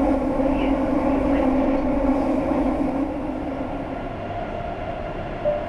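Madrid Metro train running, heard from inside the car: a steady rumble with a strong hum, easing somewhat about three seconds in. Short electronic tones begin just before the end.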